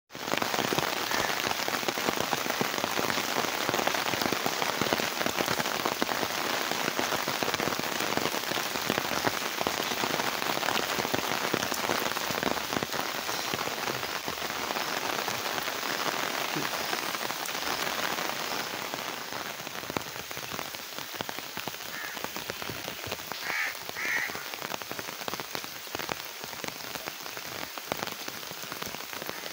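Steady rain falling on wet ground, puddles and trees, a dense even crackle of drops that eases a little after the middle.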